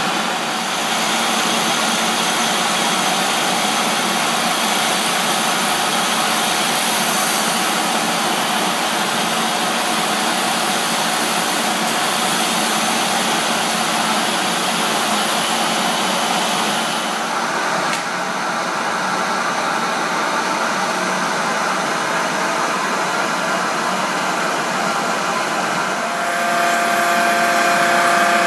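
CNC wood lathe running and turning a wooden spindle: a loud, steady machine hiss of motor and cutting. The high hiss drops off about two-thirds of the way through, and near the end a steadier motor whine with several held tones comes in.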